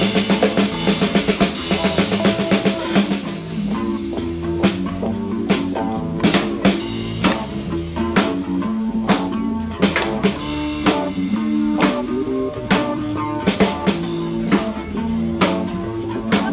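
Live rock-and-roll band playing: a drum kit with snare, bass drum and cymbals keeps a fast, even beat under amplified electric guitars and an acoustic guitar. The cymbals wash heavily for the first few seconds, then give way to crisp snare hits.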